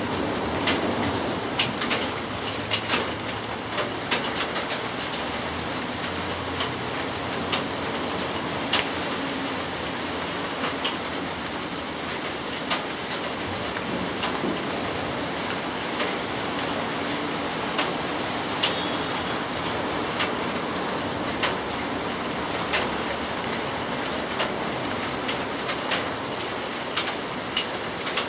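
Steady rain falling, with frequent sharp single drops ticking close by at irregular moments.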